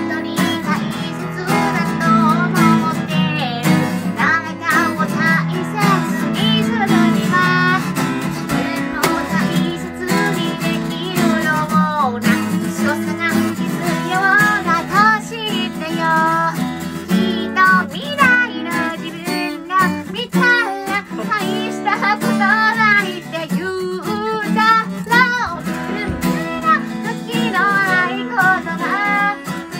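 A woman singing a pop song, accompanied by a strummed steel-string acoustic guitar.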